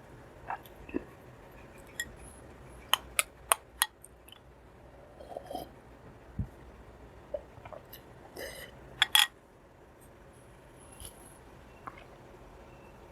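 Eating sounds: a utensil clinking against a dish, four quick clinks about three seconds in and a louder clatter about nine seconds in, with soft chewing and mouth noises between.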